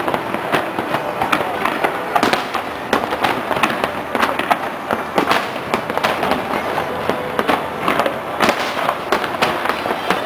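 Fireworks show going off in quick succession: a dense, unbroken run of bangs and crackles, several a second.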